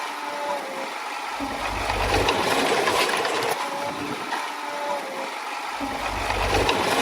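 Komatsu D20A bulldozer's diesel engine running, with a low rumble that comes and goes twice.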